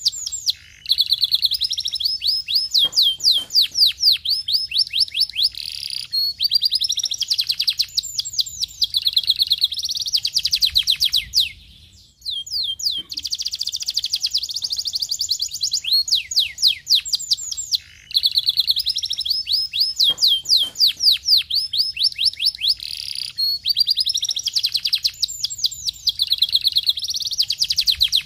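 Canary singing: long phrases of fast, high trills made of rapidly repeated notes, broken by brief pauses every few seconds.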